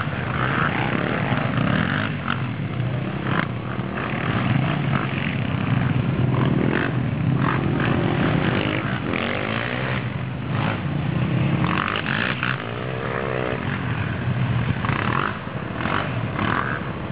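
Quad (ATV) engine running steadily, revving up and down a couple of times, with scattered clicks and knocks.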